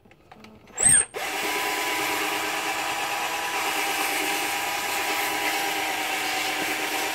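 An electric power tool switched on about a second in, a short loud burst as it spins up, then running steadily at speed with a constant whine.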